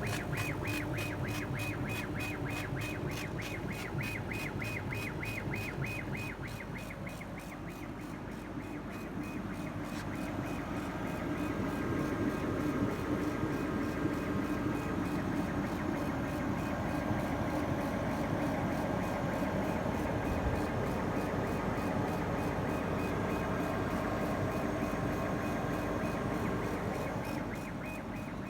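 A CO2 laser cutting and engraving machine running its test job: a fast, even pulsing for the first eight seconds or so, then a steadier motor hum with a thin whine.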